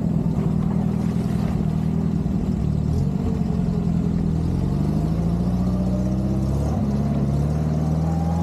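Steyr-Puch Pinzgauer's engine pulling steadily, its note rising about halfway through as it accelerates and then holding higher, with a short dip near the end.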